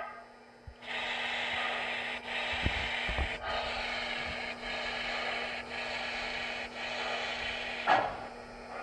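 Steam hiss played by an MTH Protosound 3 sound system in a model Docsider 0-6-0 steam locomotive: a steady hiss broken by short gaps about once a second, with a couple of low clanks near the start and a sharper burst near the end.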